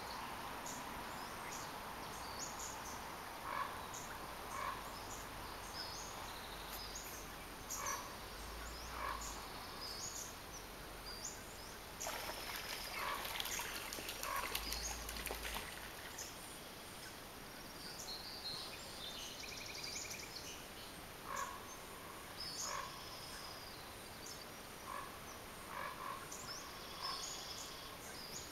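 Outdoor lakeside ambience: birds chirping and repeated short animal calls every second or two over a steady background hiss. About twelve seconds in there are a few seconds of louder rushing noise with a low rumble.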